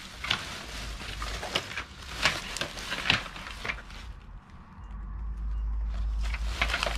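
Thin plastic carrier bag crinkling and rustling, with sharp crackles, as hands rummage through it and pull items out. A steady low rumble comes in about halfway through.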